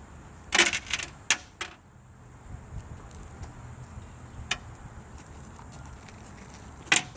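Small rocks clattering as they are dropped into a bulldozer: a cluster of sharp clicks about half a second in, a few more over the next second, and single clicks near the middle and near the end.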